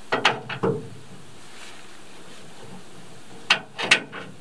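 Quick knocks and clatter from an aluminium canoe being handled: a short run of sharp clicks at the start, and another about three and a half seconds in.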